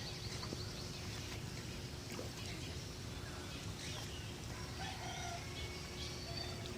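Faint farmyard ambience: chickens clucking and small birds chirping in scattered short calls, over a low background hum.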